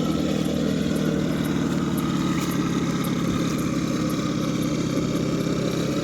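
A steady, low mechanical hum, like an engine idling, holding the same pitch throughout.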